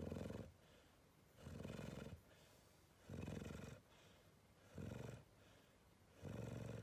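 Sleeping dog snoring: five rattling snores, each about half a second long and roughly one and a half seconds apart.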